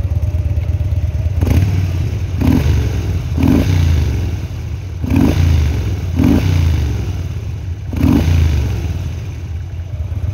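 2013 Harley-Davidson Dyna Street Bob's Twin Cam V-twin engine idling, with six quick blips of the throttle. Each rev rises and falls back to idle.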